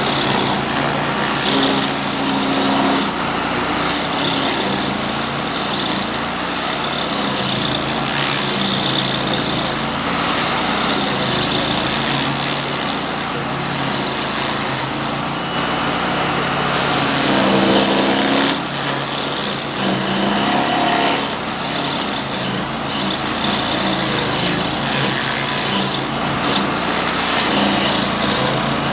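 Red Roo petrol stump grinder running at full speed, its cutter wheel grinding a date palm stump into chips with a steady engine note and a dense chipping hiss.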